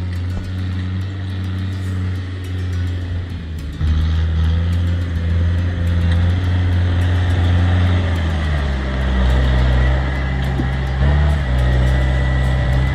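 Tractor engine running under load, its pitch and loudness stepping up and down a few times.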